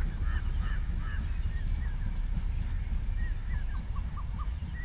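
Birds giving a string of short chirping calls, a few a second, over a steady low rumble.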